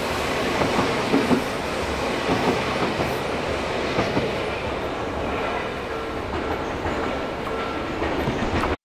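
Odakyu 4000 series electric train running past close by, its wheels knocking over the rail joints in quick pairs during the first couple of seconds. The rolling noise then eases off a little as the train moves away, and cuts off suddenly near the end.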